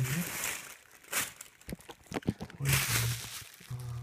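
Bubble wrap and plastic packaging rustling and crinkling as hands rummage through a packed parcel, followed by scattered small clicks and crackles.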